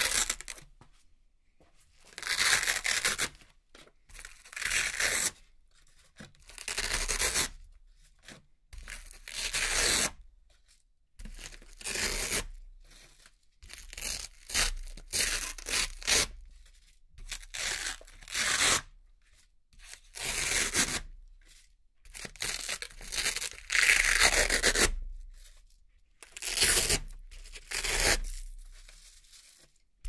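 Hook-and-loop (Velcro) fastener being peeled apart again and again as small Velcro-backed pieces are pulled off a board. There are about fourteen crackly rips, roughly one every two seconds, each lasting under a second, with short pauses between them.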